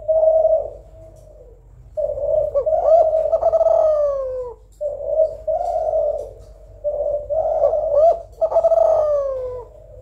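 Female Kelantan spotted dove cooing in four phrases separated by short pauses, each phrase ending in a note that slides down. It is a female's call used to get reluctant males to start calling.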